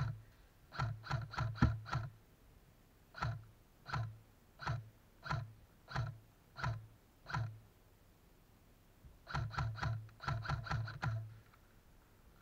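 Airsoft electric rifle firing: a quick string of about five shots, then single shots about every two-thirds of a second, then a fast run of about ten shots near the end. Each shot is a short, sharp clack with a low thump.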